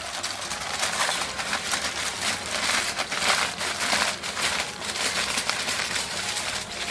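Aluminium foil being crumpled, folded and pressed tight by hands around a large parcel: a continuous crinkling and crackling.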